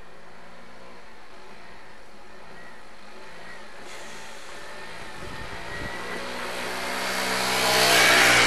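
A motorbike's engine approaching and passing close by. It grows steadily louder to a peak near the end and then starts to fade.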